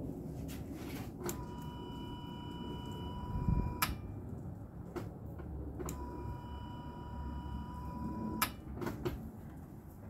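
Chrysler PT Cruiser's fuel pump circuit switching on twice as the ignition key is cycled: each time a click, a steady high-pitched hum lasting about two and a half seconds, then a click as the prime cycle shuts off. It shows the fuel pump feed is getting power during priming.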